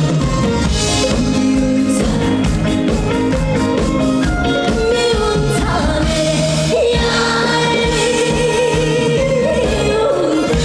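A woman singing a pop-style song over full musical accompaniment, holding one long note with vibrato from about halfway through to near the end.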